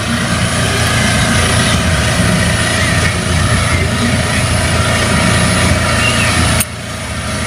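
A steady, loud motor drone, engine-like, with a sudden drop in level near the end.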